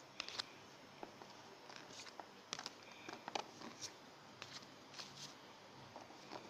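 Yu-Gi-Oh trading cards being flipped through by hand: faint, irregular flicks and clicks of card stock sliding off the stack.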